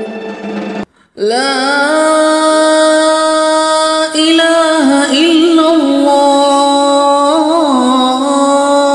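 Intro music: a singing voice holding long, ornamented notes without instruments. It cuts out briefly about a second in, then starts again.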